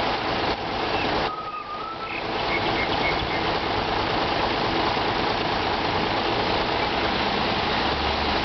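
Bus engine idling at the stop with steady traffic noise, dipping briefly about a second in.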